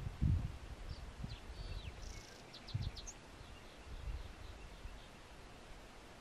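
Outdoor ambience: low rumbling gusts of wind on the microphone, loudest near the start, with small birds chirping: a few falling notes, then a quick run of about four chirps a little before halfway.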